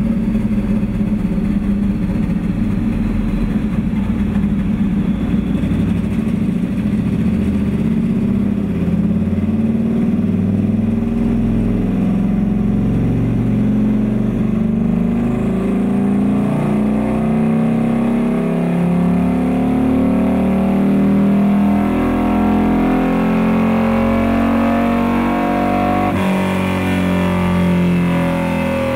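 Turbocharged 2006 Harley-Davidson Screamin' Eagle V-Rod V-twin running under load on a chassis dyno, with the rear wheel driving the drum. Engine speed rises slowly and steadily through a long pull, then drops off suddenly about 26 seconds in.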